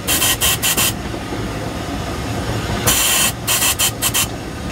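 LSWR T9 4-4-0 steam locomotive running, heard on its footplate: a steady low rumble from the moving engine, broken by two clusters of short, sharp steam hisses, about four to the second, in the first second and again from about three seconds in.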